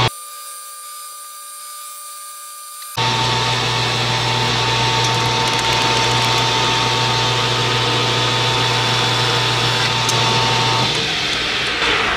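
A 12x36 import metal lathe running with its chuck spinning as a facing cut is taken on a steel part, a steady motor hum under the noise of the cut. For the first few seconds the sound is quieter and thin. About eleven seconds in the motor hum stops and the chuck coasts down.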